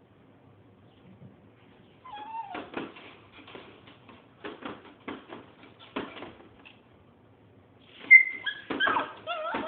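A pet animal's pitched cries and whimpers, mixed with short sharp knocks or scrapes, starting about two seconds in. The cries come louder and closer together near the end.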